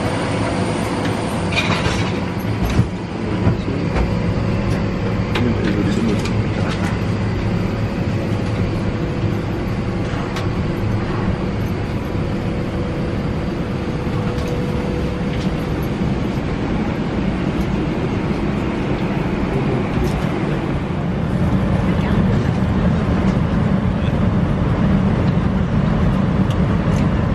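Airbus A321 cabin ambience at the gate: a steady rush and hum of cabin air, with a few knocks in the first seconds. The low hum grows louder about three quarters through.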